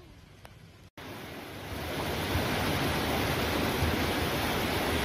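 After a quiet first second, a steady rushing of floodwater running fast down a street.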